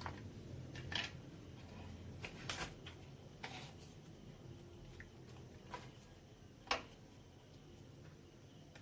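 Hands handling wires on an amplifier board: a handful of scattered sharp clicks and small knocks, the sharpest a little before the end, over a faint steady low hum.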